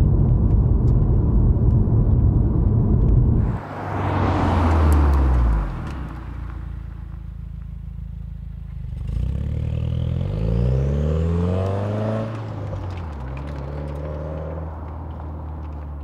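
A 2015 Subaru WRX's turbocharged flat-four, breathing through a titanium cat-back exhaust and a non-resonated J-pipe. At first it drones loud and steady, heard from inside the cabin under way. Then, from outside, the exhaust note falls as the car slows, settles low, and rises several times in a row as the car accelerates away through the gears, fading toward the end.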